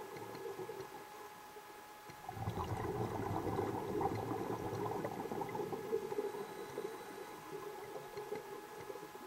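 Scuba diver's breathing heard underwater: quiet at first, then about two seconds in a long bubbling, gurgling rush of exhaled air bubbles that eases off after several seconds, over a faint steady hum.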